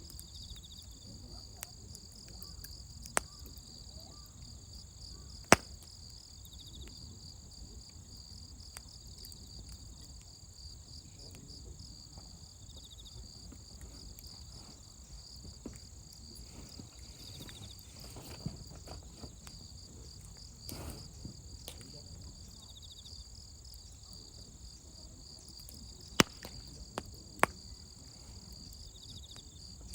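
Campfire burning with scattered sharp crackles and pops from the wood, the loudest about five seconds in and a cluster of three near the end, over a steady high chorus of crickets.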